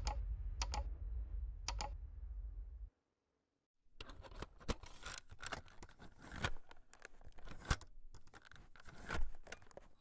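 Intro sound effects: a low rumble fading out over the first three seconds with a few sharp clicks, then a second of dead silence, then faint, irregular crackling and clicking.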